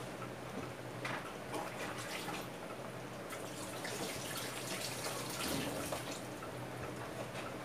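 Thick, creamy coconut-milk curry simmering in a pot, with irregular soft pops and plops of bubbles breaking the surface, busiest in the middle.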